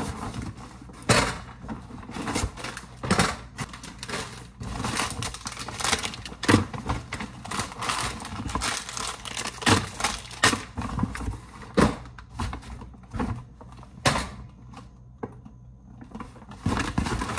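Brown paper grocery bag rustling and crinkling as hands dig through it and pull items out, with irregular knocks of the groceries.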